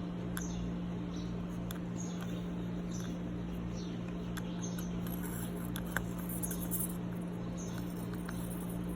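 Faint, high, short peeps, each falling slightly in pitch, repeating irregularly about once a second from a weak, dying small bird. Under them runs a steady electrical hum, with scattered light clicks and one sharper click about six seconds in.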